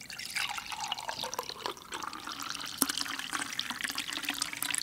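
Liquid being poured and splashing, a continuous crackly, bubbly pour whose pitch rises slightly near the end.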